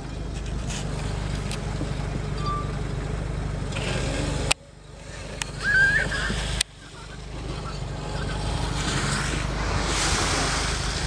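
Jeep Wrangler's engine running as it drives across mud, with wind on the microphone, and a brief voice about six seconds in.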